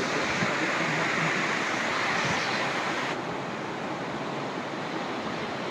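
Steady rushing roar of a waterfall plunging into a deep gorge. About three seconds in, the hiss abruptly turns duller.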